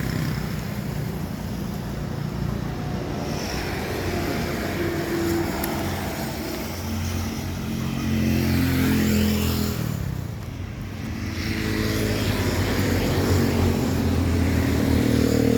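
Motor vehicles running past on a nearby road, their engine note swelling and fading. One passes loudly about eight to ten seconds in, and another builds near the end.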